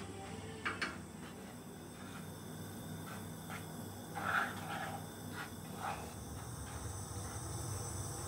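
Wooden spoon stirring and scraping dry flour as it toasts in a metal frying pan on a gas hob: scattered soft scrapes and taps, with two sharp clicks just under a second in.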